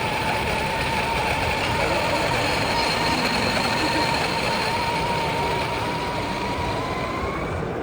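Weber Workshops EG-1 coffee grinder grinding espresso beans: a steady, quiet motor whine that rises a little in pitch near the end, then cuts off, over steady background noise.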